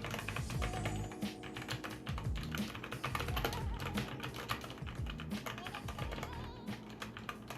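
Typing on a T-Dagger Bora mechanical keyboard with linear red switches: a fast, irregular run of key clacks, over background music.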